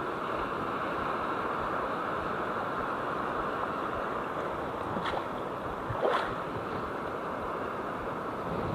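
Ocean surf washing steadily in the shallows, with two brief clicks about a second apart a little past the middle.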